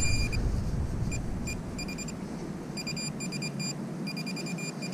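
Handheld metal-detecting pinpointer giving short high-pitched beeps, scattered at first, then coming in fast runs about halfway through as it is swept over a shallow target in the grass.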